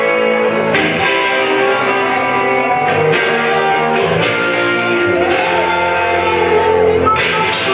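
Rock band playing live, loud: electric guitars strumming chords over a drum kit, with a harmonica playing bending notes.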